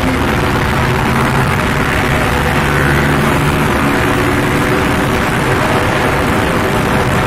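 Suzuki motorcycle engine running steadily at road speed, with heavy wind rush over the phone's microphone.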